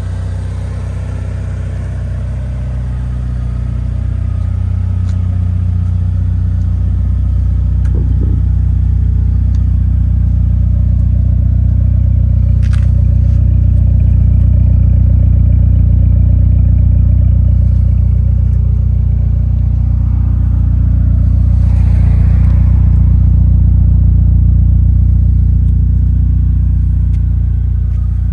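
Mitsubishi Galant VR4's turbocharged four-cylinder engine running steadily at idle, with one sharp click about halfway through.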